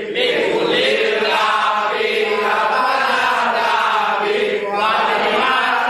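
Many men's voices chanting an Islamic devotional chant (sholawat) together in unison, a steady, continuous group chant.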